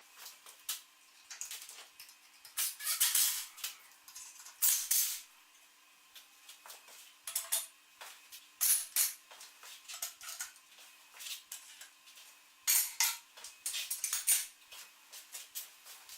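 Steel clamp parts clinking and rattling as they are handled and fitted together. The light metallic clatter comes in scattered bursts over a faint steady hum.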